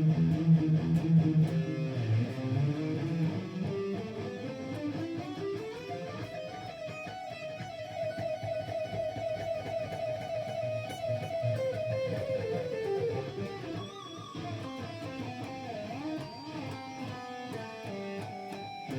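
Single guitar notes playing an E harmonic minor run: a low note rings first, then the line climbs note by note, stays up high for several seconds and comes back down, with more notes near the end.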